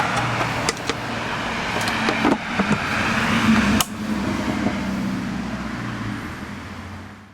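Yamaha 15 hp two-stroke twin-cylinder outboard running steadily at idle, with a few sharp clicks. The sound fades out near the end.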